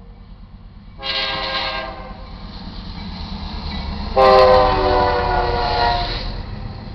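GE C44-9W diesel locomotive's air horn sounds a short blast about a second in and then a longer, louder blast. This is the horn signal for the grade crossing, heard over the locomotive's engine rumble, which grows louder as it reaches the crossing.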